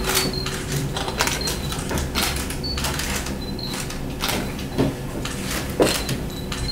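Camera shutters clicking irregularly, several cameras overlapping at about two or three clicks a second.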